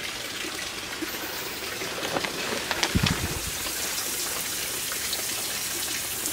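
Steady patter of falling water, with scattered single drops ticking on plastic and leaves, and a low thump about three seconds in.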